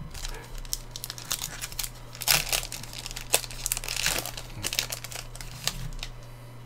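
Crinkling and crackling of a plastic trading-card pack wrapper being torn open and handled, in irregular rustles with a couple of louder bursts.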